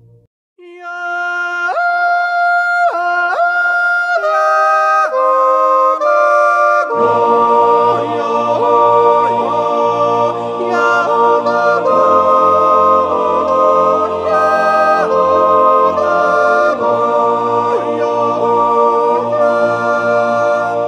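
Background music: a yodel song. A lone voice yodels with sharp leaps in pitch, and an instrumental accompaniment with a bass line joins about seven seconds in.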